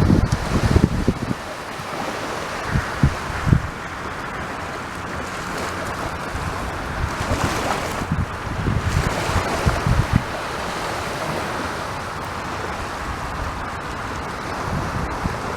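Sea waves breaking and washing up the beach in a steady surf, with one surge of wash about halfway through. Wind buffets the microphone in low gusts near the start and again about two-thirds of the way in.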